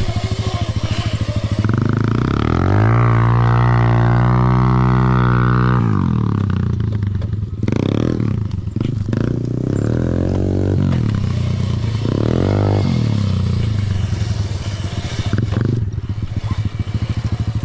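Gas dirt bike engine revving while riding. It climbs about two seconds in, holds at high revs for a few seconds, drops back, then rises and falls several more times.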